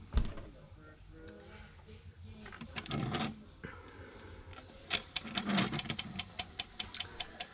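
Light knocks as a small all-metal model air compressor is handled on a workbench, then from about five seconds in a rapid, even clicking of about six clicks a second.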